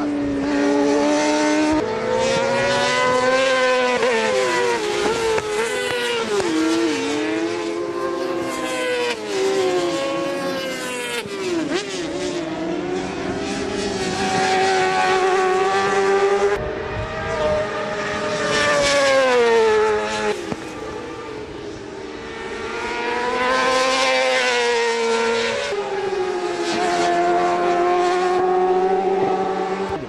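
Racing motorcycle engines revving hard on track, pitch climbing through each gear and dropping back at shifts and on braking into corners, rising and falling in loudness as the bikes pass.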